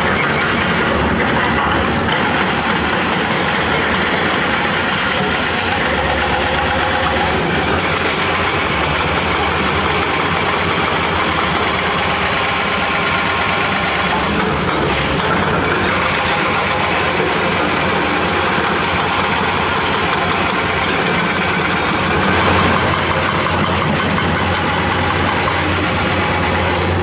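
Diesel engines of Komatsu hydraulic crawler excavators running steadily while they dig hard limestone, a dense unbroken machine din that swells briefly about two-thirds of the way through.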